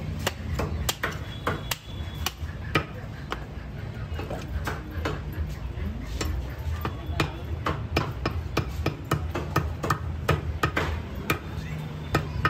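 A butcher's cleaver chopping through a goat's head in quick, irregular strokes, several a second, with sharper, louder blows here and there, over a steady low hum.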